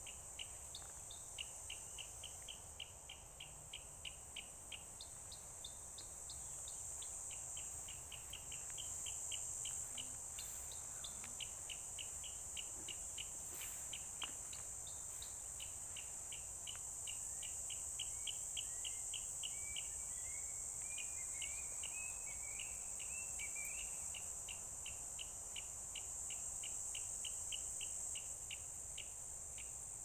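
Insects shrilling steadily at a high pitch, with a long run of short, sharp chirps repeating several times a second. A brief bird warble comes in about two-thirds of the way through.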